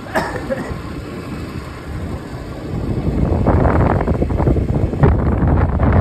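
Wind buffeting the microphone on a moving motorised two-wheeler, over low engine and road noise; the wind grows louder about halfway through.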